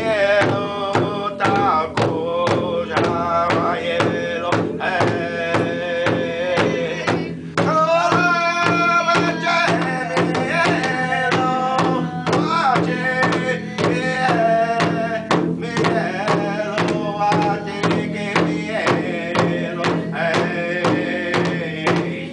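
Large hide-headed drum struck with padded drumsticks in a steady, even beat, with a voice singing over it in long, wavering notes. The singing breaks off briefly about seven and twelve seconds in while the drumming goes on.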